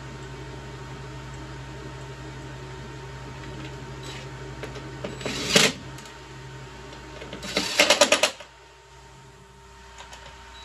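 Cordless power driver running in two short bursts as it drives screws into a chair seat's metal mechanism plate, the first about five seconds in and the second, longer one with rapid clicking. A steady low hum runs beneath until the second burst.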